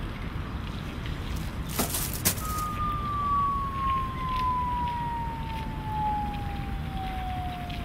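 A brief clatter of rubbish dropped into a litter bin, then a long, slowly falling whistle from the 'world's deepest bin' loudspeaker, the sound of something dropping a very long way down. The whistle starts about two seconds in and is still falling at the end.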